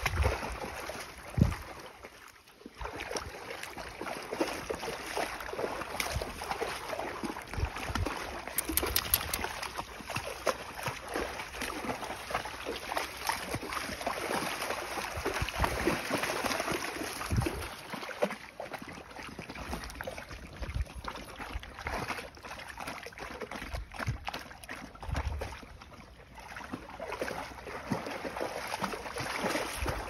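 Several Akbash dogs wading through shallow water, a steady sloshing full of small irregular splashes, with a few brief low thumps.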